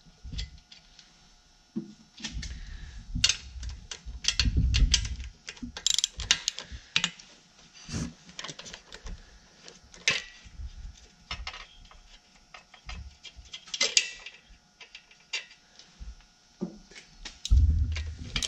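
Socket ratchet clicking in irregular runs, with a few knocks of metal tools, while the cylinder head nuts of a Volkswagen Type 1 engine are loosened.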